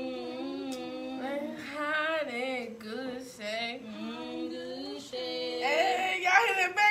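A woman singing a slow melody with long, wavering held notes, getting louder near the end.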